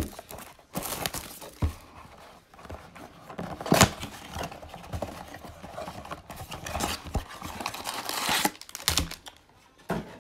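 Trading-card blaster boxes being torn open and their foil-wrapped card packs pulled out and set down: crinkling of foil wrappers and tearing of cardboard, with a few sharp clicks and taps.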